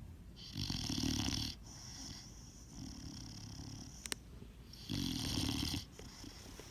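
Snoring: two loud snores, each about a second long, near the start and about five seconds in, with softer breathing between them and a brief click just before the second snore.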